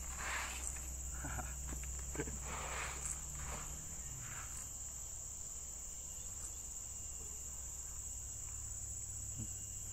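Steady high-pitched insect chorus. During the first few seconds it is joined by the soft hiss and rattle of NPK fertilizer granules being poured from a plastic bucket into a metal bowl.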